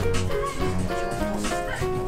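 Background music: a melody of short held notes stepping up and down over a steady low bass.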